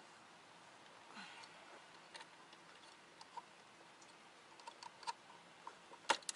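Faint, scattered clicks and ticks as hands work at the clamps holding a metal mounting plate on the back of a refrigerator, with a few sharper clicks near the end as a clamp is released.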